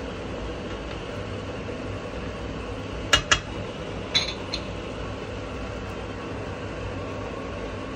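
Kitchenware clinking: two sharp clinks close together about three seconds in, then a ringing one about a second later and a faint one after it, over a steady background hum.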